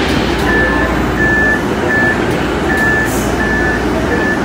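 MBTA Green Line light-rail car running, a steady rumble heard from inside, with a string of short high-pitched electronic beeps repeating roughly every half second to a second.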